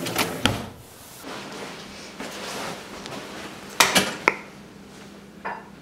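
Metal kitchen utensils clattering as a hand rummages through a cutlery drawer, then a short stretch of rustling. A few sharp knocks and clicks come about four seconds in and are the loudest part.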